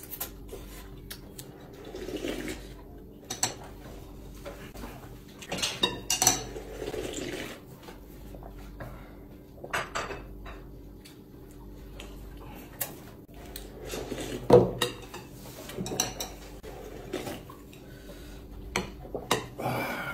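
Porcelain bowls and chopsticks clinking and knocking at the table during a meal, irregular sharp clicks, with short stretches of slurping noodles and broth.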